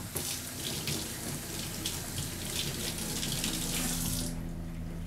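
Kitchen tap running into a stainless steel sink, then shut off about four seconds in.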